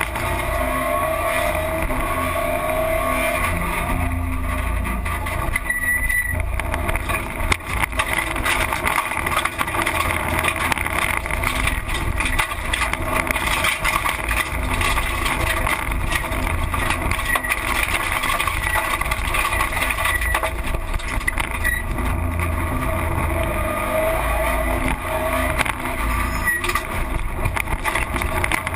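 Rally car driven hard on a special stage, heard from inside the roll-caged cabin: the engine's pitch rises and falls with the throttle over a heavy low drone of road and drivetrain noise, with many short knocks throughout.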